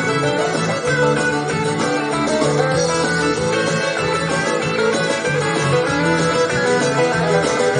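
Song with plucked and strummed guitar from a radio broadcast, played through a Pioneer SX-650 stereo receiver and Infinity SL-20 loudspeakers.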